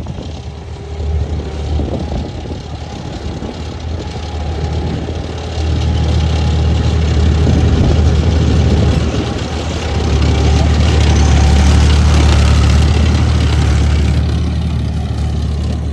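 Heavy engine of a tracked armoured vehicle running as it drives across sand, a deep steady rumble that grows louder about five seconds in and is loudest around twelve seconds in as the vehicle comes close, then eases off slightly.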